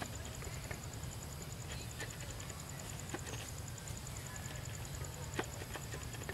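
Outdoor ambience: a steady low rumble with a faint, evenly pulsing high tone and a few sharp clicks, one about three seconds in and one about five and a half seconds in.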